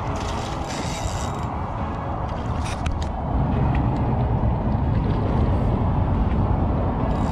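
Steady low rumble of wind on the microphone, growing louder about three seconds in. Under it a spinning reel rasps in short spells as a hooked fish is fought, with a few sharp splashes just before the rumble rises.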